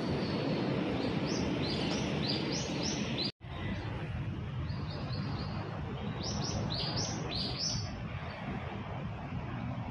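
A small bird chirping in quick runs of short, high, rising notes, in two bouts, over steady low outdoor background noise.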